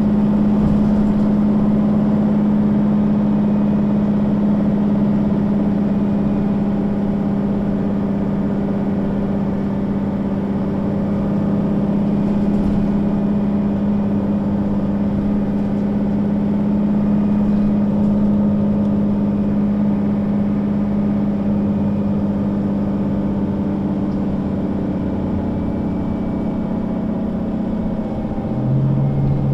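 Mercedes-Benz O 530 G Citaro articulated bus's six-cylinder diesel engine running steadily under way, a constant drone. Near the end the engine note steps down to a lower pitch.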